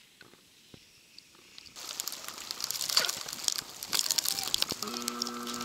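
Crackling crunch of footsteps on wet, slushy snow, starting suddenly about two seconds in and running on as a dense crackle. Near the end a steady hum with several fixed tones joins it.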